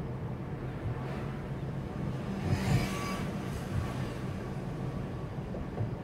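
Car driving along a road, heard from inside the cabin: a steady low engine hum and road noise. About two and a half seconds in there is a brief louder passage with a faint tone in it.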